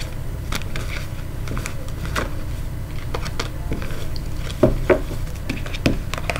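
Tarot cards being picked up and gathered from a cloth-covered table: light clicks and taps of card against card, with two sharper clicks about two-thirds of the way in, over a low steady hum.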